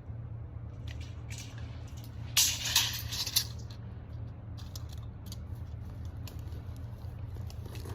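An engine idling with a steady low hum. A short loud burst of crunching and rattling comes a little over two seconds in, with a few lighter clicks later.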